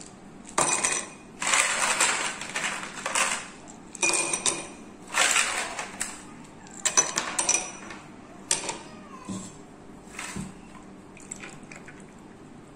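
Ice cubes dropped by hand into two glass tumblers, clattering and clinking against the glass in about six bursts over the first nine seconds, followed by a few fainter knocks.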